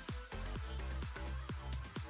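Electronic dance music with a steady kick drum, about four beats a second, over a deep bass line.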